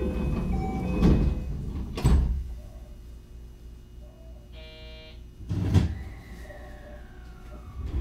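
Sliding passenger doors of a 223 series 0-bantai train at a station stop: thumps about one and two seconds in, a short chime just before five seconds, then a louder thump as the doors shut near six seconds in. A faint tone falls in pitch afterwards over a low steady rumble.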